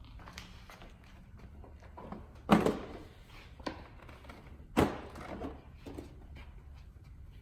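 Plastic snowmobile body panels being handled and pulled off: two loud hollow knocks about two seconds apart, with lighter clicks and taps between them.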